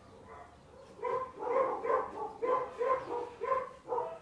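Pit bull-type dog giving a quick run of short, high yips, about two a second, starting about a second in.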